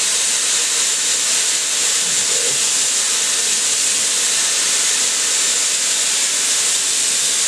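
Dyson Airwrap hair styler with its long curling barrel, blowing hot air on high heat and high fan: a steady rush of air with a thin high whine through it.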